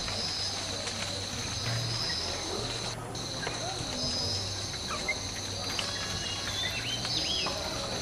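Steady high-pitched insect drone, like crickets or cicadas, with scattered short bird chirps and whistled notes, most of them about six to seven seconds in, over a low steady hum.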